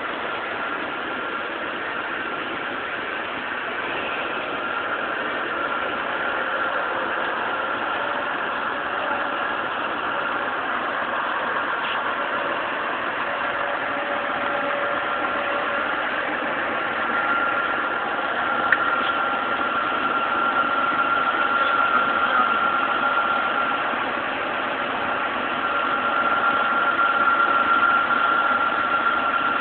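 Scania P360 truck's diesel engine running as the truck slowly moves a trailer loaded with a long steel column, with a steady high whine over it; louder near the end.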